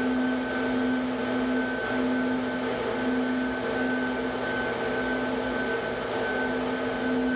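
Cylinder head flow bench running steadily, its vacuum motor a steady whine over a rush of air. It is holding about 28 inches of test depression against a closed valve, with no flow through the port.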